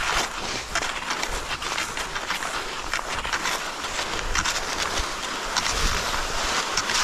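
Cross-country skis sliding and scraping along groomed classic tracks, with poles planting in the snow: a continuous run of rough, irregular scraping strokes.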